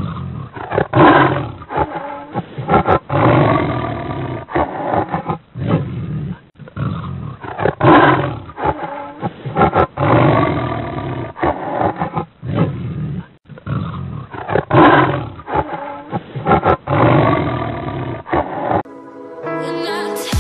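Bengal tiger roaring and growling over and over, in a sequence that repeats about every seven seconds like a looped track, with music under it. Near the end it gives way to an electronic intro with stepped rising tones.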